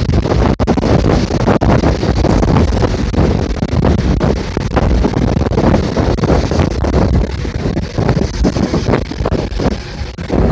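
Wind buffeting the microphone heavily over the rumble of a moving bus on a wet road. The gusts flutter rapidly and unevenly throughout.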